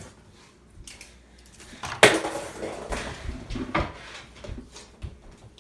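Beyblade spinning tops clattering against a hard plastic stadium: one loud clack about two seconds in, a second of rattling that fades, then a few lighter clicks.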